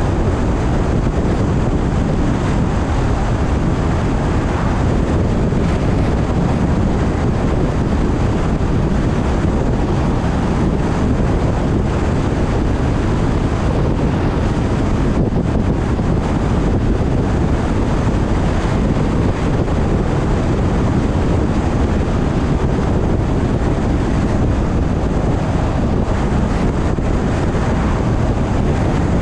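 Steady road and wind noise from a car driving at an even speed, a constant low rush with no breaks or changes.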